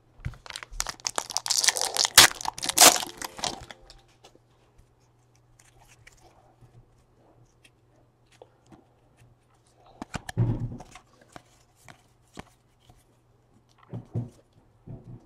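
A Panini Elite Draft football card pack wrapper torn open and crinkled, a dense crackling over the first few seconds. About ten seconds in there is a short burst of sharp clicks as the cards are handled.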